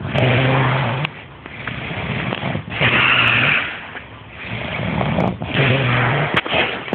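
A man snoring loudly. Three long snores come about every 2.7 s, each lasting about a second, with quieter breathing between them.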